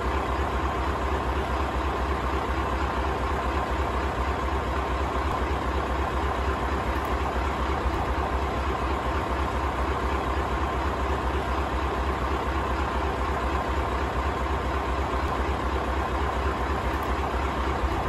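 Scania LBS141's 14-litre V8 diesel idling steadily: an even, deep throb with a steady high whine over it.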